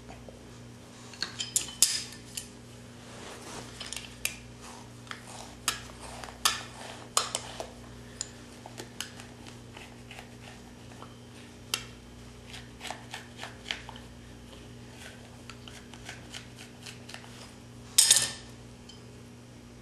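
Scattered clicks, ticks and short scrapes of a metal hand tool and gloved hands working the skin of a mule deer cape as its ears, lips and nose are turned; the loudest is a brief rasp near the end. A steady low hum runs underneath.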